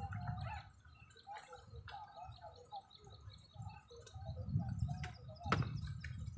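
Birds chirping with many short notes, over gusts of wind rumbling on the microphone; a sharp click about five and a half seconds in.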